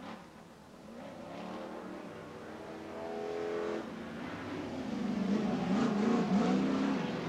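Off-road race truck engines revving up and down through the throttle as the trucks race round the dirt track. The sound grows louder from about a second in.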